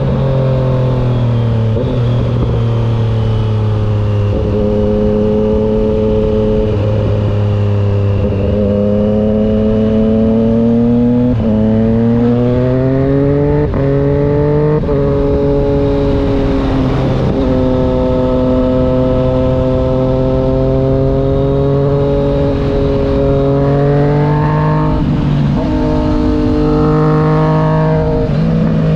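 2020 Triumph Street Triple 765 RS inline three-cylinder engine breathing through an unbaffled SC Project full exhaust system, heard while riding. The engine note climbs and then drops sharply several times as it accelerates and changes gear, with a few quicker rises and falls near the end.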